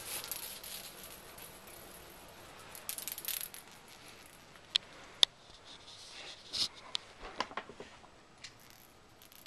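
A few faint, sharp clicks and light rattling over quiet room noise, two clicks standing out about halfway through, with soft rustling around them.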